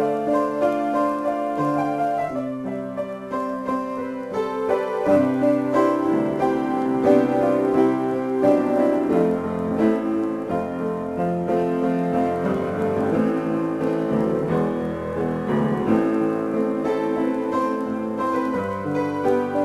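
Solo piano playing an improvisation: sustained chords and melody notes, changing every second or so.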